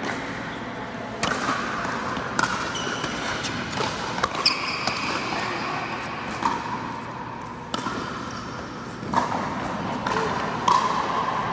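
Pickleball rally on an indoor court: sharp pops of paddles striking the plastic ball, about one every second or so, echoing in the hall, with a few short high squeaks between hits.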